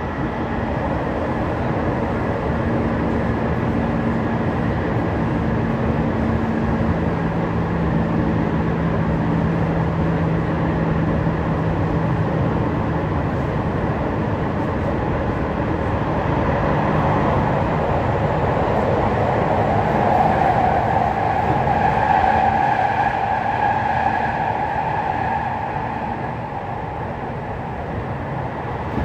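Tokyu 5050 series electric train running, heard from inside a passenger car: a steady rumble of wheels on rail. Over it runs a low motor hum that steps down in pitch about a quarter of the way in, and a higher whine swells and then fades past the middle.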